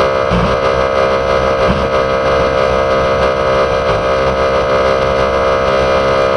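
A loud, harsh held electronic tone, a dense chord of many steady pitches like a distorted horn blast. It holds without changing and cuts off abruptly at the end.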